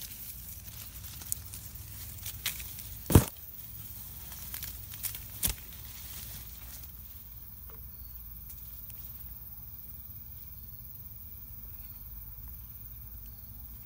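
Leaves and twigs rustling and crackling against the phone as it is pushed through dense undergrowth, with two sharp cracks, the loudest about three seconds in and another about two seconds later. After about seven seconds the rustling stops and only a low, steady rumble of handling and wind remains.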